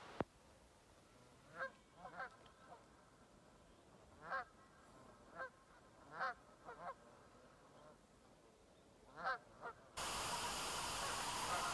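Geese honking: a series of short, separate honks, some in quick pairs, over a very quiet background. Near the end a steady rushing noise comes in.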